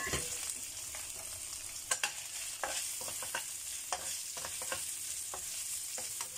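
Sliced onions sizzling in a little oil in a wok over low heat, while a spatula scrapes and knocks against the pan about once or twice a second as they are stirred.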